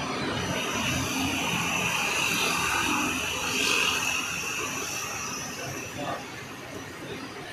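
Road traffic: a passing vehicle's noise swelling to a peak about three and a half seconds in, then fading away.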